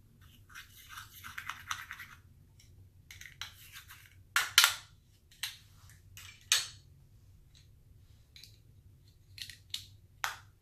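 Clear slime being worked by hand, with crackly squishing. A dense run of it comes in the first two seconds, followed by separate sharp pops; the loudest pop is about four and a half seconds in.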